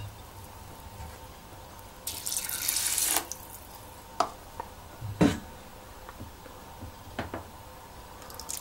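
Water poured from a plastic measuring cup into a steel multicooker bowl of washed rice, a splashing pour lasting about a second, followed by a few light knocks of the cup against the bowl or counter.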